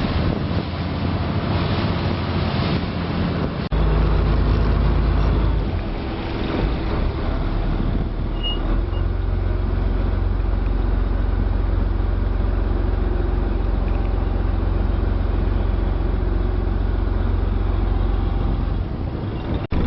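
Small passenger ferry's engine running with a steady, loud low rumble over wind and water noise. There is a brief break about four seconds in, after which the low rumble is stronger.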